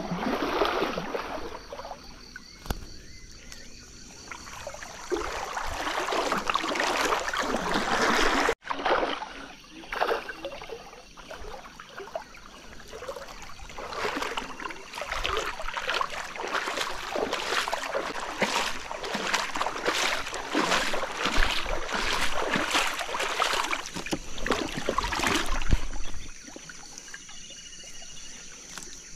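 Shallow river water splashing and trickling as a gill net is worked by hand, with a long run of quick splashes through the middle of the second half.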